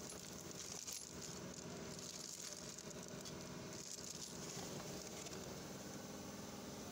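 Plastic bag and wrapping crinkling and rustling as hands pull it back from a new rear differential unit, swelling a few times as it is handled.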